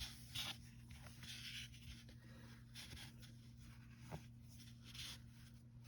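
Faint rustling and scratching of hands working acrylic yarn into a crocheted gnome's beard, with a couple of small clicks, over a low steady hum.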